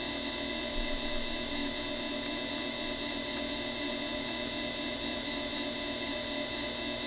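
7x mini lathe running at a steady speed, its motor and gear train giving a steady whine of several tones.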